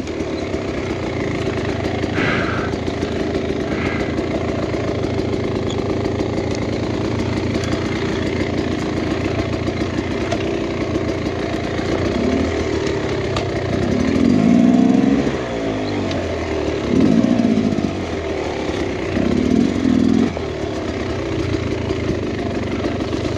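Two-stroke engine of a 2023 Beta X-Trainer 300 dirt bike running as it is ridden, with the revs rising and falling in a few short surges past the middle.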